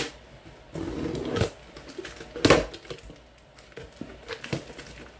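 A ballpoint pen scraping and tearing through packing tape on a cardboard box. There is a scraping stretch about a second in and a sharp rip near the middle, then a few light taps.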